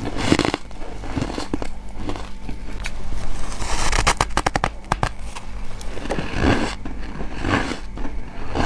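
Freezer frost being bitten and crunched in the mouth: a series of crackly bites, with a quick run of crackling about four seconds in.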